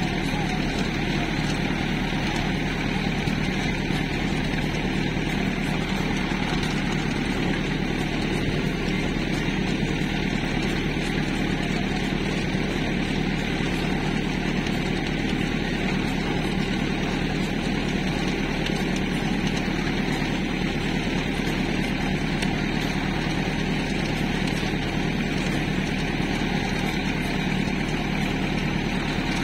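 Tractor engine running at a steady speed while pulling a working garlic planter.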